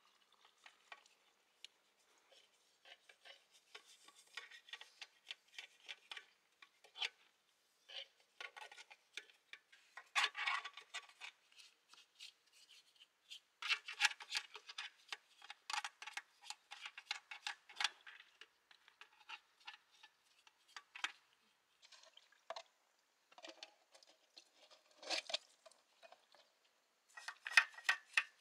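Small metal parts and hand tools clinking and scraping as they are handled, in irregular clusters of sharp clicks with short pauses between.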